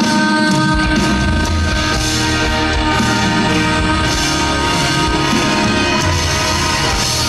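Live band accompaniment to a pop ballad, mostly instrumental, with sustained chords. Bass and drums come in under them about half a second in.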